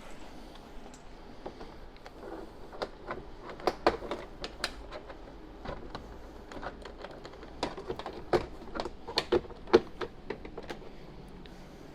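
Plastic trim tools prying a Fisker Ocean's door card away from the door, its plastic retaining clips popping loose in irregular sharp clicks and snaps, in two busy bunches.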